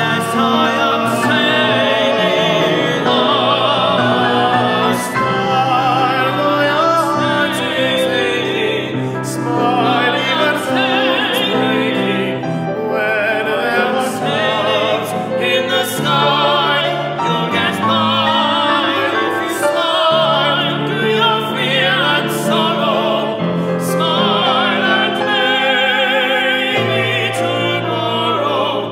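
Male voices singing with vibrato over piano accompaniment, from a tenor-and-baritone vocal duet arrangement.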